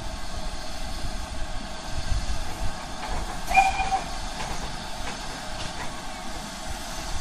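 Steam locomotive standing in steam on a turntable as it is turned: a steady hiss of steam, with a brief high squeal about halfway through.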